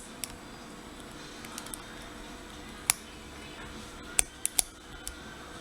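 Scattered sharp clicks of a lock pick working the serrated pins of a Matlock 3655 padlock held under light tension, with a quick cluster of three about four seconds in.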